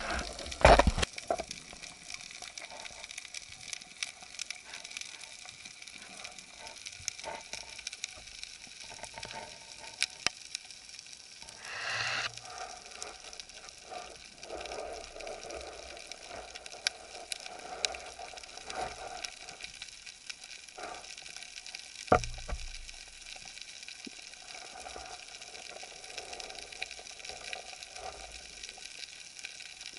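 Steady underwater crackling and ticking heard from a diver's camera at a rocky reef, with a couple of sharp knocks about a second in, a brief rush of noise around twelve seconds, and another sharp knock about two-thirds of the way through.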